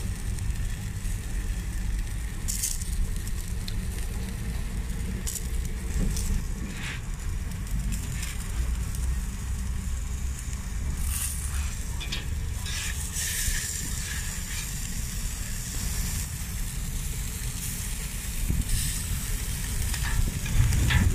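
Sopes and a fat-fried quesadilla sizzling on a hot flat griddle, a steady hiss with scattered small crackles, over a constant low rumble.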